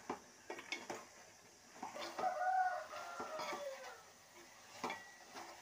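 A metal spoon clinks and scrapes against an aluminium pot as a thick curry is stirred. In the middle comes one long pitched call, about two seconds long, that falls in pitch as it ends.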